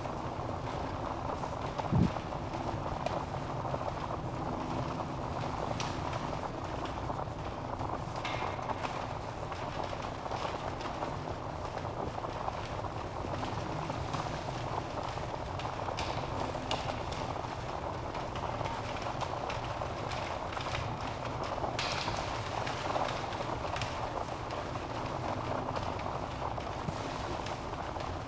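Wood fire burning in a fireplace: a steady rushing hiss of flames with scattered crackles and pops from the burning logs, and one louder low thump about two seconds in.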